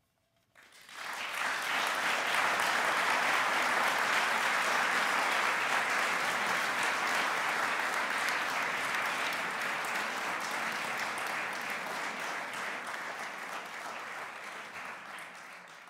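Audience applauding, starting about half a second in, holding steady, then fading away near the end.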